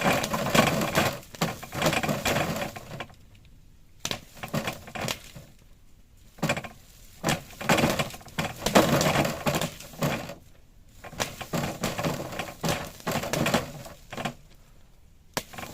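Greenhouse plastic film crinkling and crackling in irregular bursts as it is handled, with quieter pauses between.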